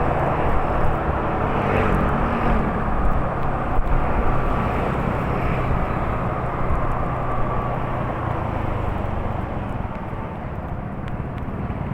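A steady engine-like drone with rumbling noise, easing off gradually over the second half.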